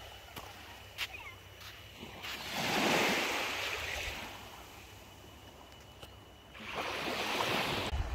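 Small sea waves washing up on the shore, with two swells of surf, one about two and a half seconds in and another near the end.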